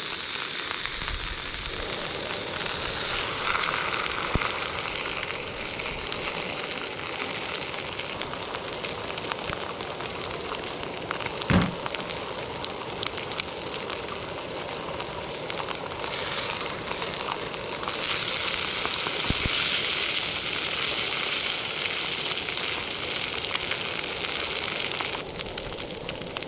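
Steak sizzling as it cooks over an open fire, a steady hiss full of small crackles that grows louder for a while in the second half. One sharp knock about twelve seconds in.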